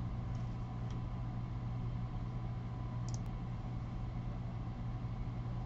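Steady low background hum, with a few faint light clicks, the clearest about three seconds in.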